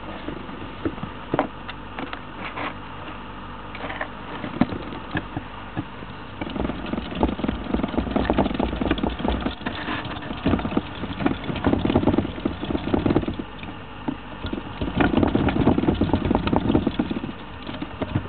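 Pet hamster moving about in its cage on newspaper bedding, rustling and scratching. Scattered clicks come first, then three bursts of denser crackling, each lasting two to three seconds.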